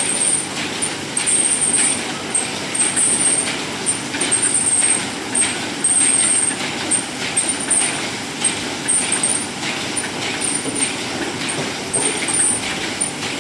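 Matoba double-head saddle-stitching (pinning) machine running, its stitching heads and conveyor clattering in a steady, repeating rhythm, with short hissing bursts among the strokes.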